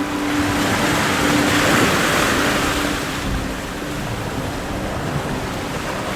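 Lake waves washing in: a steady rush of water that swells over the first couple of seconds and then eases off.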